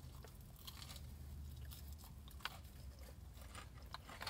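A person chewing a large waffle fry, with faint, irregular crunches and mouth clicks.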